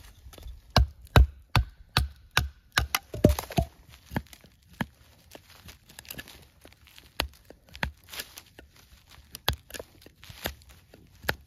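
Knife strokes biting into a green wooden stake: a quick run of sharp wooden knocks, about two or three a second in the first few seconds, then scattered single cuts.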